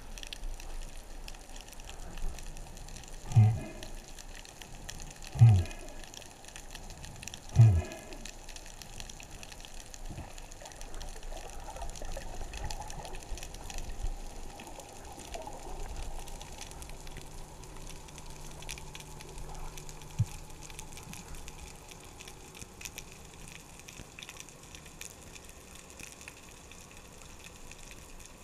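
Underwater sound picked up by a camera on a spearfisher's speargun during a dive: a steady watery hiss with fine crackling, broken by three loud low thumps about two seconds apart in the first eight seconds. Later a faint steady hum comes in for a few seconds, with a single sharp click.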